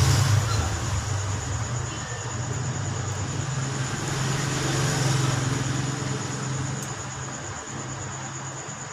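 A low, steady engine-like hum that swells twice and eases off toward the end, with a thin, steady high-pitched whine over it.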